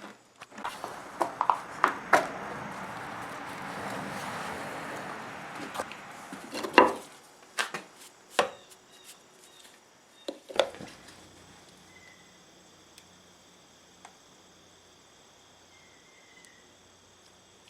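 Casting sand being poured or scooped into a moulding flask, a rustling pour for about six seconds with sharp knocks among it. A few more separate knocks follow, the last at about eleven seconds.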